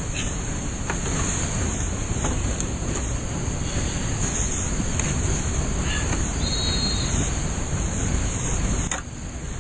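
Steady rush of river whitewater, a loud hiss-like roar heard close up. There is a brief high tone about two-thirds of the way in, and the sound drops abruptly just before the end.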